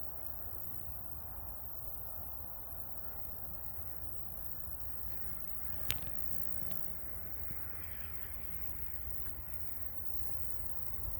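A bird calling over a steady low background rumble, with one sharp click about six seconds in.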